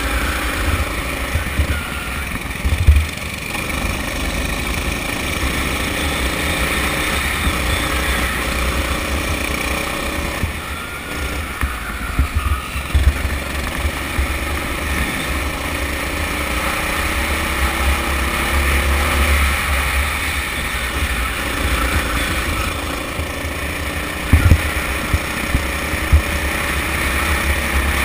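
Onboard sound of a Sodi rental kart's Honda engine under way, its pitch climbing slowly again and again as it pulls out of corners, over heavy wind rumble on the camera housing. A few sharp knocks stand out, the loudest about three seconds in and another pair near the end.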